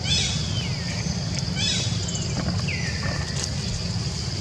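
Baby long-tailed macaque squealing three times in high, frightened cries, each sliding down in pitch and the last held longest: distress as a bigger monkey bites and holds it.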